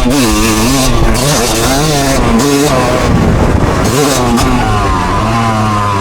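A motor vehicle's engine revving up and down repeatedly, loud, its pitch rising and falling several times.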